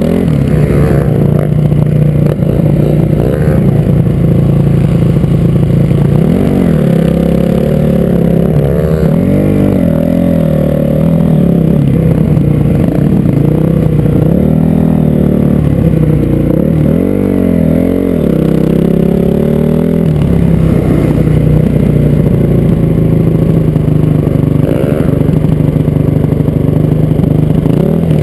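Honda four-stroke single-cylinder dirt bike engine running under the rider, its pitch rising and falling over and over as the throttle is opened and closed.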